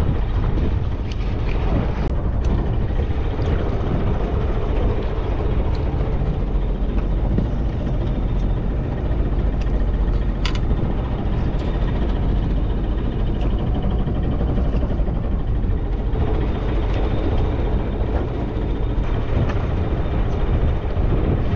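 Fishing boat's engine running steadily with a low rumble, with a few light clicks and knocks of tackle handled on deck.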